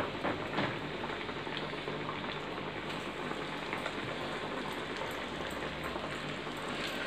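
Chicken nuggets deep-frying in a kadai of hot oil: a steady, dense crackling sizzle of bubbling oil. A few light knocks in the first second.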